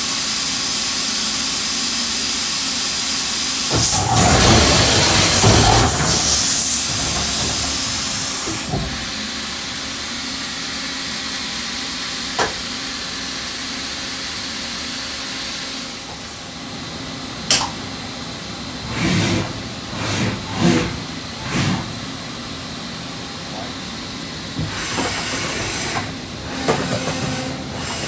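Steady hiss inside a CNC horizontal machining center, with louder irregular gusts of hissing about four seconds in and again in the second half, and a few sharp clicks.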